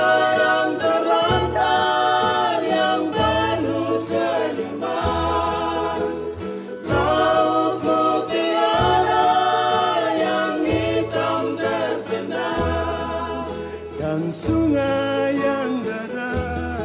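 Song in Indonesian: sung voice holding long notes in phrases with short breaks, over instrumental accompaniment with a steady bass line.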